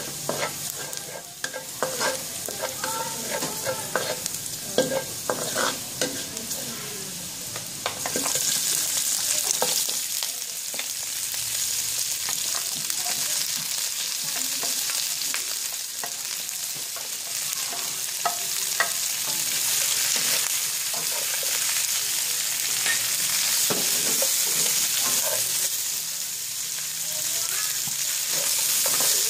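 Minced garlic sizzling in hot oil in a wok, with a wooden spatula scraping and stirring. About eight seconds in, chunks of roasted pork go into the pan and the sizzle becomes louder and denser while they are stirred.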